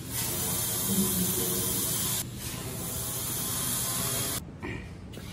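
Cutting torch hissing steadily as it cuts a round hole through steel tubing. The hiss dips briefly about two seconds in and cuts off abruptly near the end.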